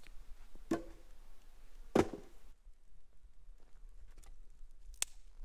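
Chunks of firewood knocking as they are set down by the fire pit, two wooden knocks with the louder one about two seconds in. A single sharp click near the end.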